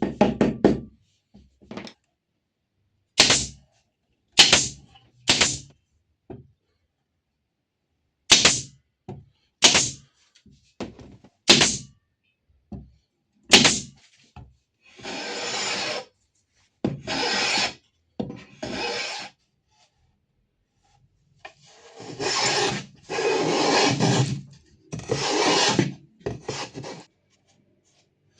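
Hand work on a wooden piece: a series of irregular sharp knocks on wood, then about seven rasping strokes of roughly a second each, like filing or sanding.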